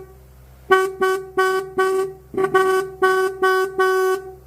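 A 64-year-old electric car horn, powered from an 18-volt battery, honking in about eight short blasts of one steady note, each sounding as the battery lead touches its terminal; the old horn still works.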